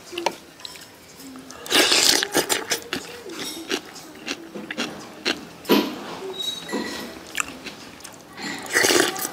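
Someone eating a bowl of noodle curry soup: a spoon clicks against the bowl, with short noisy bursts of eating. The louder bursts come about two seconds in and again near the end.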